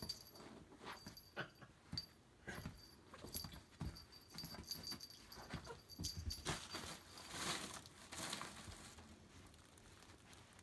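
A tiny bell on a cat's collar jingling on and off as the cat romps on couch cushions, among soft thumps and fabric rustles. About seven seconds in comes a louder rustle.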